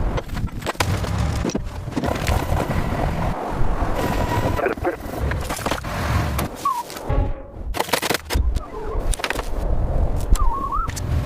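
A busy jumble of knocks, clattering and scraping over a low rumble, with two short squeaky chirps, one about two-thirds of the way in and one near the end.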